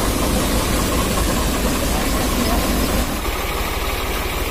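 Tractor-powered paddy cleaning machine running steadily, the tractor engine driving its fan drum with a constant low rumble and a dense whirring noise; the sound thins a little about three seconds in.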